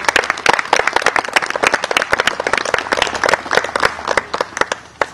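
Audience applauding, a dense run of many hands clapping that stops near the end.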